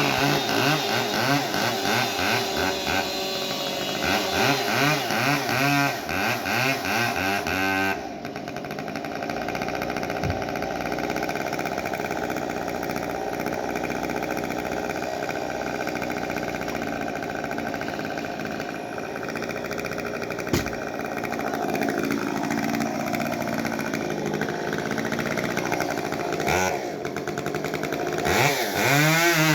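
Gas chainsaw engine running loud, revved up and down repeatedly, then held at a steadier pitch after an abrupt change about eight seconds in, with the revving picking up again near the end.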